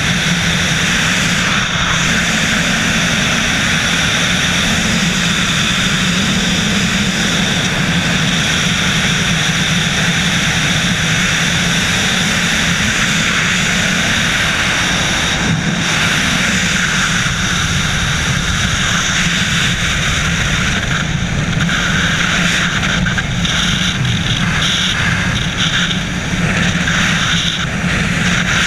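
Loud, steady rush of freefall wind buffeting a helmet-mounted camera's microphone, turning more uneven and gusty in the last several seconds.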